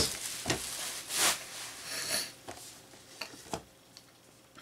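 Plastic bubble wrap rustling and crinkling as a boxed figure is pulled out of it. A couple of short sharp clicks come around the middle, then quieter handling.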